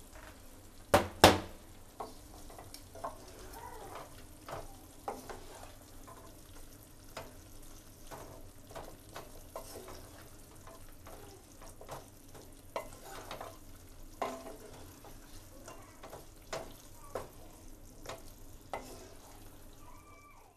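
Wooden spatula stirring fried chicken pieces through thick gravy in a non-stick pan, tossing them to coat, with scattered small scrapes and clicks over a low sizzle. Two sharp knocks about a second in are the loudest sounds.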